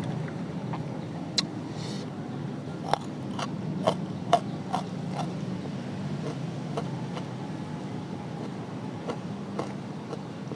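Close-up sounds of someone eating rice and omelette: chewing, with a run of sharp mouth clicks and smacks in the first half. A steady low hum runs underneath.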